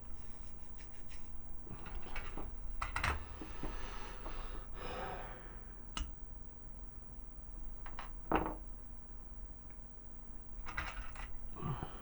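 Small hard plastic parts being handled and pressed into a plastic toy figure: scattered clicks and taps, with a longer scraping rub in the middle.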